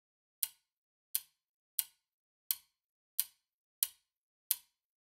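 Twin-bell alarm clock ticking steadily: crisp, sharp ticks about three every two seconds, with silence between.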